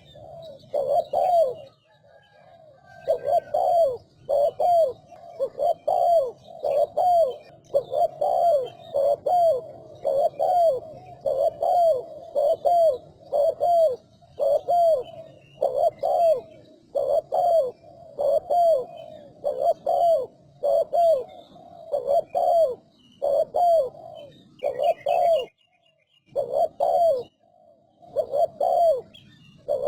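Spotted dove cooing in a fast, steady run of repeated coos, about one and a half a second, broken by a few short pauses.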